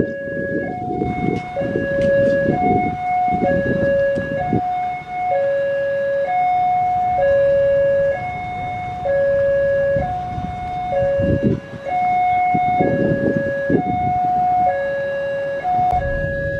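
Railway level-crossing warning alarm sounding a steady two-tone signal, alternating between a higher and a lower tone about once a second each, the sign that the barrier is down and a train is approaching. Low traffic rumble from the waiting vehicles comes through during the first few seconds and again briefly past the middle.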